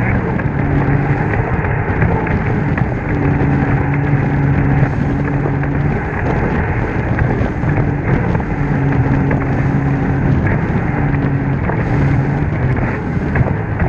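Jet ski running at speed across open water: a loud, steady rush of wind and spray over the microphone, with the engine's low drone fading in and out every second or two.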